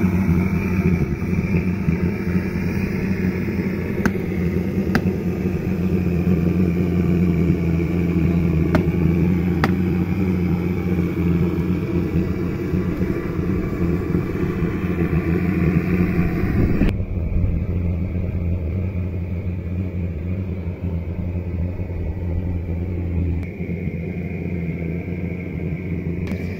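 Steady low mechanical hum, like an engine or motor running, with a few faint clicks in the first ten seconds. The higher part of the sound drops away suddenly about two-thirds of the way through.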